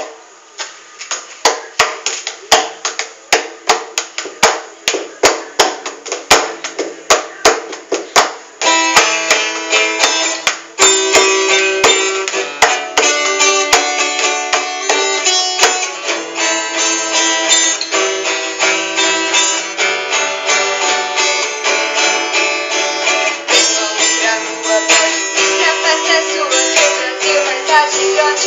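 Acoustic guitars strummed in a steady beat after a count-in, the playing growing fuller and denser about nine seconds in.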